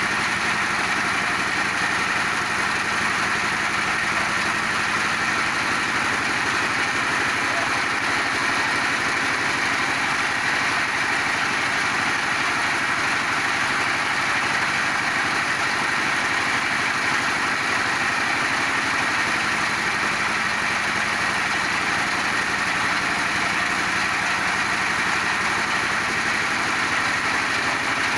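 Multifunction livestock feed pellet and grinding machine running steadily under power, a constant machine drone that does not change.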